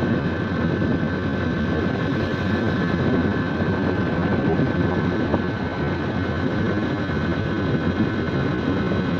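Motorcycle running steadily while being ridden, an even engine drone that does not rise or fall.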